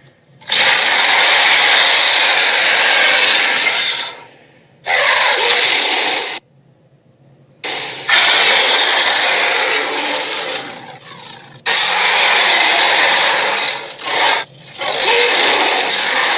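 Electronic sound effects of a Transformersaurus transforming-dinosaur toy: harsh, noisy effects in about five bursts of one to four seconds each, each cutting off abruptly, with short gaps between them.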